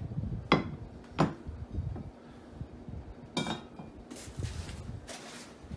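Enameled cast iron Dutch oven and its lid knocking together: three sharp clinks, the last one, about three and a half seconds in, ringing briefly, followed by a rustle near the end.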